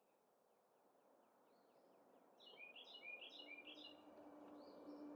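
Songbirds chirping a quick series of short notes that fall in pitch, over a faint hiss. About three seconds in, a low steady tone comes in beneath them.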